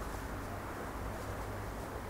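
Steady low background noise, a faint hiss and hum with no distinct event.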